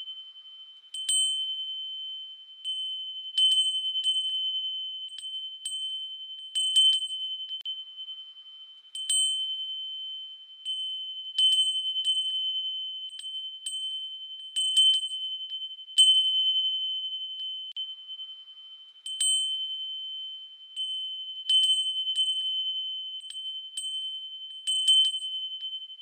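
Chimes struck at irregular intervals, about one a second, each ringing out and fading, over a steady high ringing tone.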